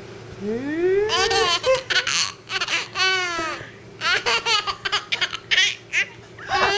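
Baby laughing: a rising squeal about half a second in, then repeated bursts of high-pitched laughter.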